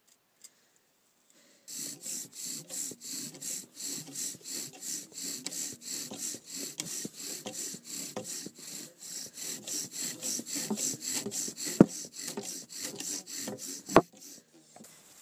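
Bow drill in use: a wooden spindle spun back and forth by a bow, grinding in a wooden hearth board hard enough to smoke. It goes as an even rasping rhythm of about three strokes a second, starting about two seconds in and stopping near the end, with two sharp clicks near the end.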